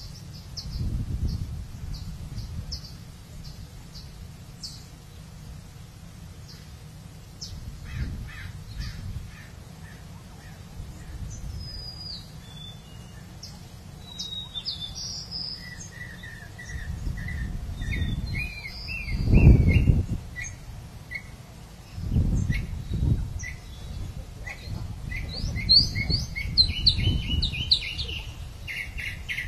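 Wild birds chirping and calling, sparse at first and busier through the second half. Several low rumbles come and go underneath, the loudest about two-thirds of the way through.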